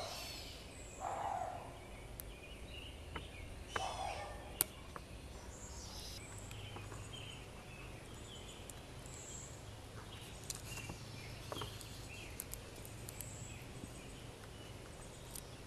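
Faint paper rustling and a few light clicks as a paper stencil is cut with a pocketknife blade and the cut strips are peeled away. Small birds chirp in the background through the second half.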